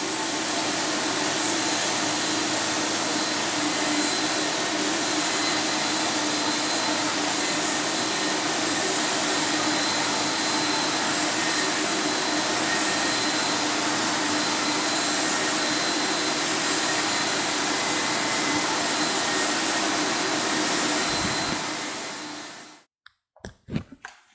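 Apollo HVLP turbine blowing air through the hose and 7700 spray gun while paint is sprayed, a steady rushing hiss with a faint high whine. It dies away about 22 seconds in as the turbine shuts down, followed by a few light clicks.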